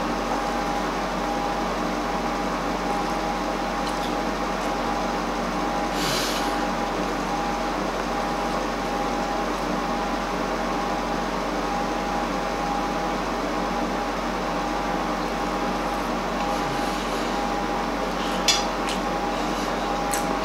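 A steady hum with a constant tone runs throughout. A short hiss comes about six seconds in, and a single sharp clink near the end, a fork against a plate.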